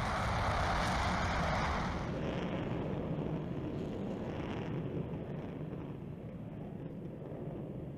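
Jet roar of a B-1B Lancer's four afterburning General Electric F101 turbofans at takeoff: a steady rushing noise that dulls about two seconds in and slowly fades as the bomber climbs away.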